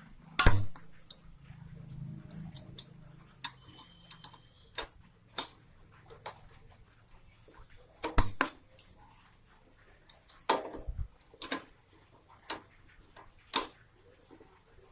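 Spanners clinking and knocking on a motorcycle's rear axle nut as it is tightened: scattered sharp metallic clicks and taps, the loudest about half a second in and a pair around eight seconds in.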